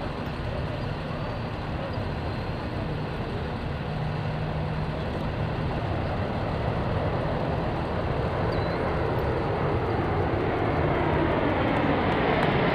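Four-engine turboprops of two C-130J Super Hercules transports, heard in flight as the aircraft approach. A steady engine and propeller hum grows gradually louder.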